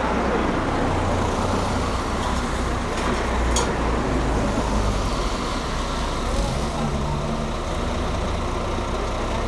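Backhoe loader's diesel engine running steadily, with one sharp click about three and a half seconds in.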